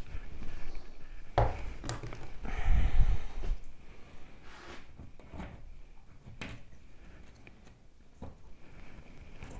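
Quiet handling sounds as a toggle bolt is picked up and fitted to a hole drilled in drywall: a few light clicks and knocks, with a short, louder rustle about three seconds in.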